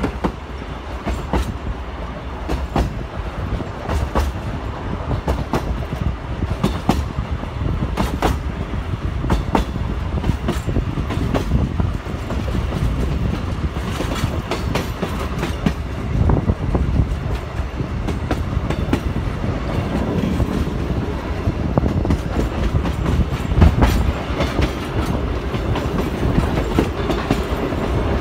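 Railway carriage running along the track: a steady rumble with sharp wheel clicks over the rail joints, heard from the open carriage window.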